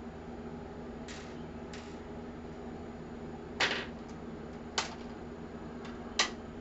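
A handful of short clicks and scrapes, the loudest about halfway through, from hands working on a computer case and its hardware. A steady low hum runs underneath.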